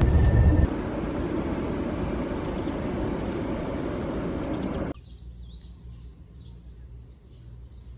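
Steady rumbling ride noise of a moving vehicle. After a sudden cut about five seconds in, it gives way to quieter outdoor air with small birds chirping.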